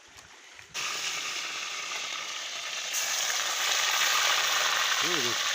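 Fish frying in hot oil, a steady sizzle that starts abruptly about a second in and grows louder a couple of seconds later.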